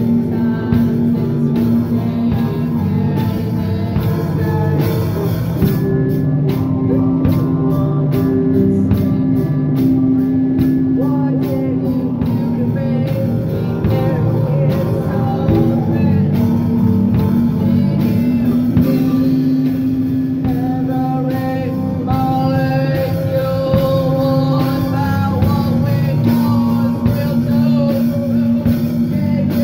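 Live rock band playing: a woman sings over electric guitar and a drum kit, with a run of quick cymbal hits partway through.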